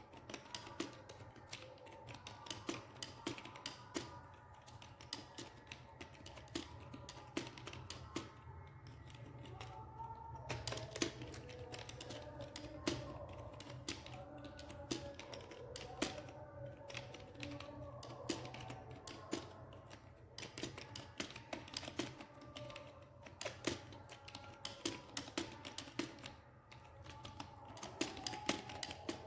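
Computer keyboard being typed on fast in a typing speed test: a continuous stream of irregular key clicks, several a second, with a couple of brief pauses. Faint music plays underneath.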